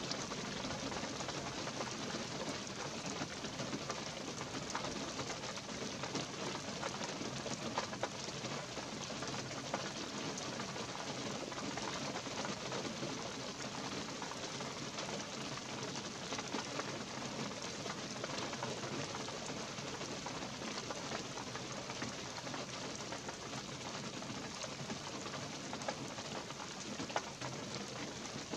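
Light rain falling steadily in a pine forest: a continuous hiss dotted with the patter of many small drops.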